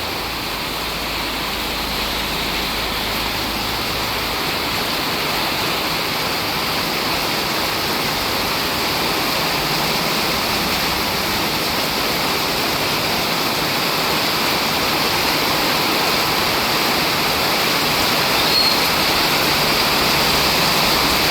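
Heavy monsoon rain pouring down: a dense, steady hiss that grows slowly louder.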